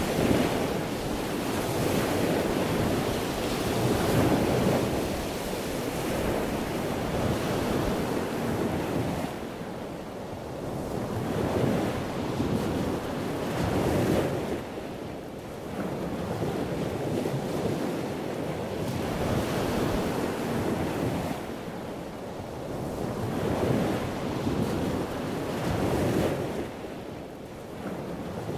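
Ocean waves surging and breaking, swelling and ebbing every few seconds, with wind rumbling on the microphone.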